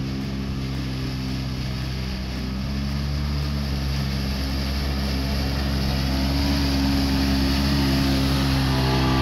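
Side-by-side UTV engine running steadily as it drives through a shallow creek, with water splashing around its wheels. It grows louder as it comes close near the end.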